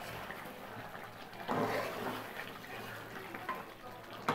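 Chicken and bottle-gourd curry simmering in an aluminium pot while a spatula stirs and scrapes through it, louder about one and a half seconds in; a sharp knock of the spatula on the pot at the very end.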